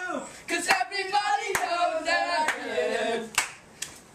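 Young boys' voices singing in a small room, with sharp hand claps about once a second.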